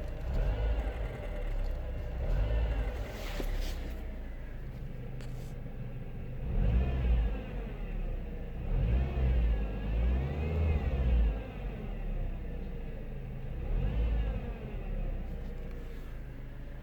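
Renault Kangoo's 1.4-litre petrol engine revved in repeated short throttle blips, each time the revs rising and falling back to idle. The blips are made to bring out a knock that the owner hears as the revs fall from about 2000 to 1000 rpm and that fades at idle, of unknown cause.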